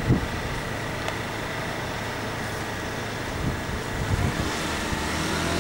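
Steady road traffic noise with a low rumble. Near the end, one vehicle's engine note begins to rise.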